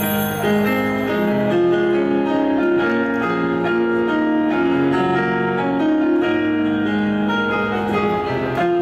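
Instrumental pop music with sustained keyboard chords over a moving bass line and no singing: the intro of an idol song's backing track.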